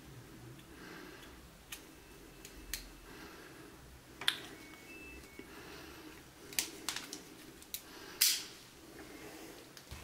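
Sharp metal clicks and snips from a black folding multitool's pliers-cutter: a few single snips as its jaws bite through thin rope, then a quick cluster of clicks as the handles are folded closed, the loudest click near the end.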